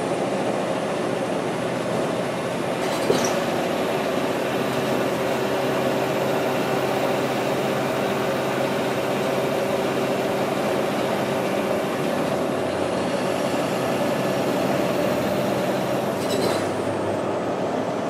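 Onboard sound of a NABI 416.15 transit bus running steadily under load, heard from inside: its Caterpillar C-13 diesel engine and ZF six-speed automatic transmission, with road and tyre noise. A faint steady whine sounds for much of it, and there are two brief clicks, one about three seconds in and one near the end.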